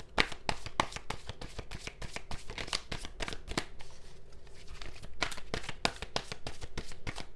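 Tarot cards being shuffled by hand: a quick, uneven run of soft clicks and slaps of card against card.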